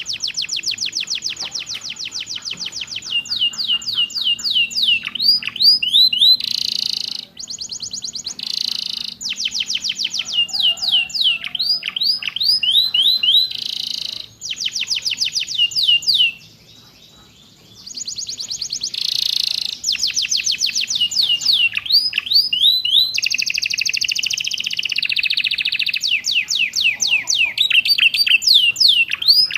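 Domestic canary singing a fast, varied song that carries phrases learned from prinias (ciblek and prenjak): rapid trills of repeated notes, runs of falling sweeps and buzzy rolls, with one short pause about halfway through.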